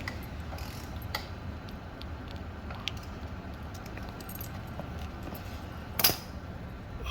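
Small metal clinks and taps of hand tools and bolt hardware being handled while a frame slider is bolted on, over a steady low hum. There is one sharp metallic clack about six seconds in.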